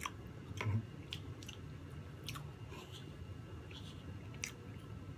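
Two people chewing soft chocolate and coffee-cream chiffon cake close to the microphone, with scattered sharp wet mouth clicks and smacks.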